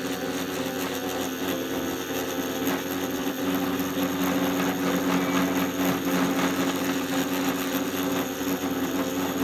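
CNC P6 rotary tattoo pen running steadily, a steady motor hum that gets a little louder about three and a half seconds in.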